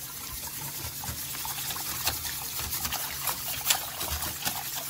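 Wire whisk beating a thin yogurt and gram-flour batter in a stainless steel saucepan: steady wet sloshing, with quick light clicks of the wire tines against the pan.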